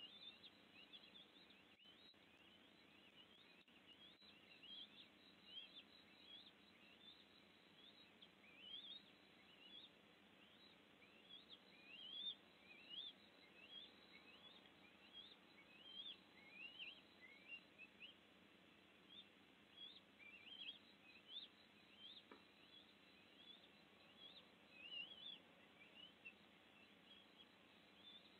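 Faint, repeated high chirps from a bird, short notes sweeping upward, about one or two a second throughout, over a low steady hiss.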